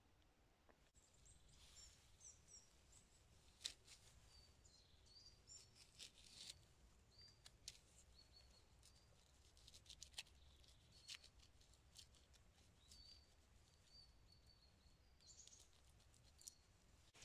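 Faint scraping and sharp ticks of a knife blade cutting into the bark of a birch log, with small birds chirping now and then.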